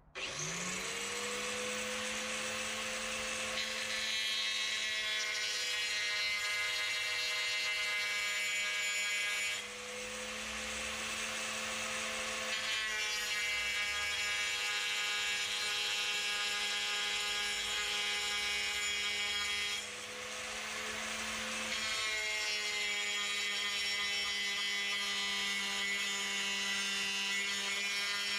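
Rubi TC-125 rail-guided electric disc saw starting up with a quickly rising whine, then running at a steady high-pitched whine while cutting a strip off a long tile slab. Its level and pitch dip briefly twice, about a third and two thirds of the way through.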